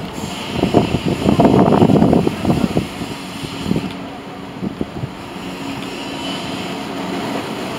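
SriLankan Airlines Airbus A330 taking off at a distance, its jet engines a rumble under heavy wind buffeting on the microphone. The gusts ease after about two and a half seconds, leaving a steady low drone.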